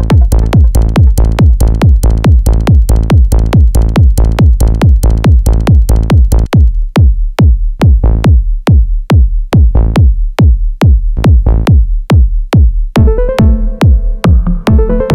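Live techno from a Roland TR-8S drum machine: a steady four-on-the-floor kick drum about twice a second. About six seconds in the fuller layer over the kick drops out, leaving the kick almost alone, and near the end a pitched synth riff comes in.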